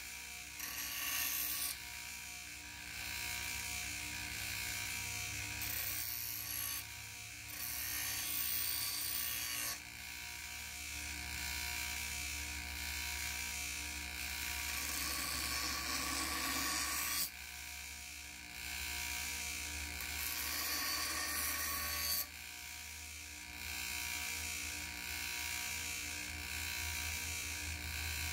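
Bench grinder motor running steadily while a forged kukri blade is pressed against the grinding wheel and lifted off again, the grinding noise coming in stretches of a few seconds with short breaks, the longest break about three seconds past the middle.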